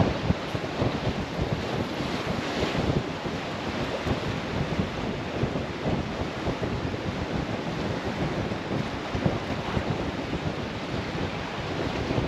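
Strong wind buffeting the microphone in uneven gusts, a steady rumbling rush with no other clear sound on top.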